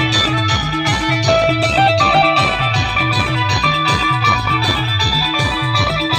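Timli band instrumental music: a fast, even beat of low, falling bass-drum notes, about three a second, under a bright plucked-string lead melody.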